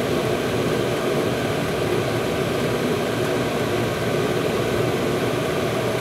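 Steady rush of a diesel air heater running at maximum power, its blower pushing hot air out through the outlet duct, mixed with the steady running of an extractor fan.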